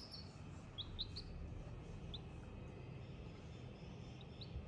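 Baby chicks peeping faintly: short, high, upward-sliding peeps, scattered and irregular, with a quick run of them about a second in.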